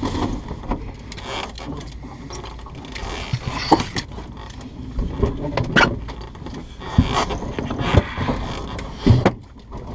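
Scattered clicks, knocks and rustling from people moving in a small aircraft's cabin and handling its equipment. The loudest knocks come at irregular intervals from about a third of the way in.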